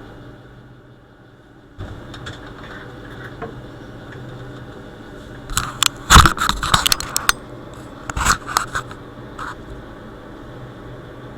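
Plastic casing of a sewing machine motor's foot pedal being handled and opened, with a cluster of sharp clicks, knocks and scrapes about halfway through and a few more shortly after.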